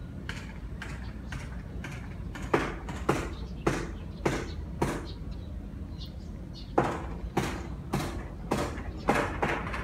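Footsteps of someone walking outdoors, sharp steps about two a second, over a steady low rumble. The steps pause a little past halfway, then return louder.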